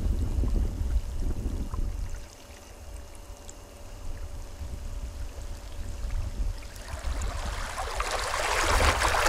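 Small waves lapping in shallow seawater, with wind buffeting the microphone as a low rumble; a louder wash builds near the end.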